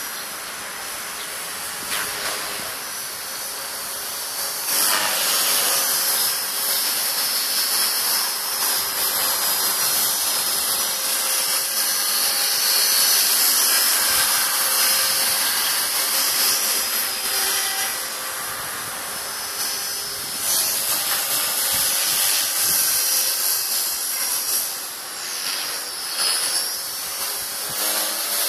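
ALZRC 450-size electric RC helicopter flying overhead: a steady high whine of its motor and spinning rotors, getting louder about five seconds in and dipping briefly near the end as it manoeuvres.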